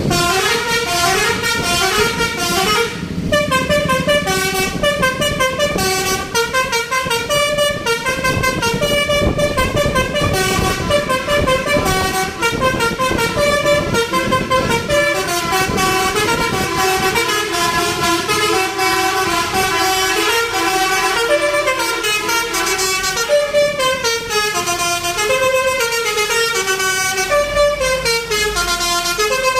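Multi-tone musical horn of an Indonesian tour bus playing a melody, its notes stepping quickly up and down without a break.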